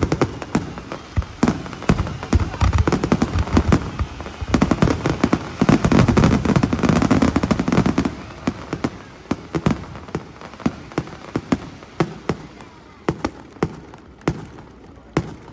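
Fireworks bursting in a dense run of bangs and crackles, heaviest around the middle, then thinning to scattered single cracks toward the end.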